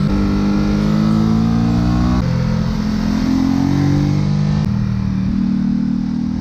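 Ducati Supersport S's V-twin engine accelerating, its pitch climbing, dropping sharply as it shifts up about two seconds in and again near five seconds, then climbing again. Wind noise on the microphone runs under it.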